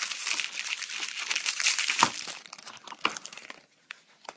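Plastic packaging crinkling and rustling as it is handled and opened. The crinkling stops about three and a half seconds in, and a few light clicks follow near the end.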